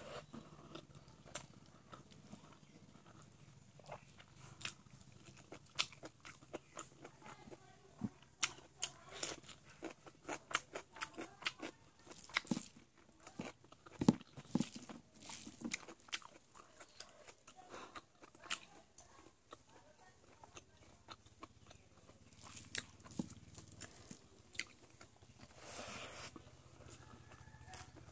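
Close-up chewing and biting of cooked chicken, with irregular crunches and wet clicks, coming thickest in the middle stretch.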